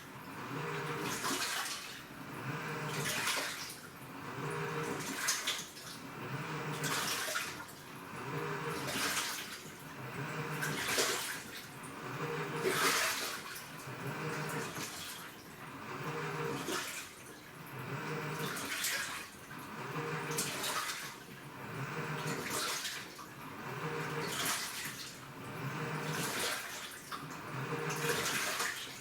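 Washing machine agitating in its wash cycle: water sloshing in even surges about every two seconds, alternating with the hum of the motor as it turns the wash back and forth.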